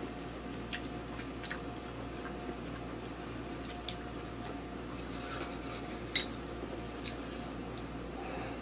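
A fork clicking against a plate now and then while eating, with a sharper click about six seconds in.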